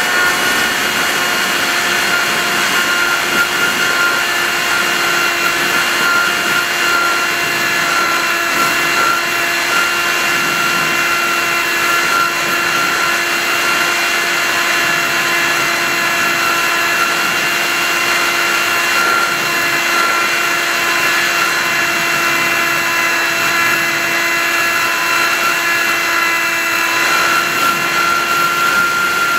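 TBRC Reflex 38 RC plane's motor and propeller in flight, heard from the camera on board: a steady whine at an unchanging pitch over a rush of wind noise.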